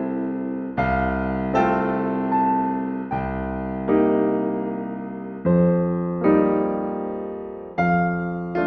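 Slow, gentle solo piano music: sustained chords struck about every second, each fading away before the next.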